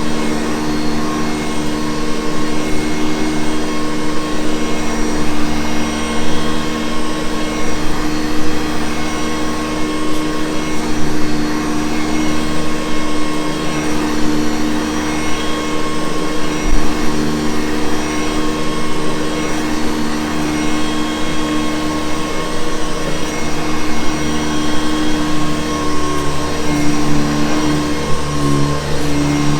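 Hoover Convertible U4387 upright vacuum cleaner running steadily: a constant motor hum with several steady tones over the rush of air. The low tones waver slightly near the end.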